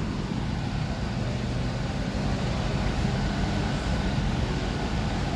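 Steady low mechanical hum with a rumbling background, unchanging throughout.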